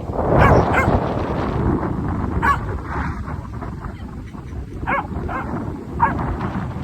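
Corgi barking in short sharp barks, about six of them spread out with gaps between, over wind buffeting the microphone.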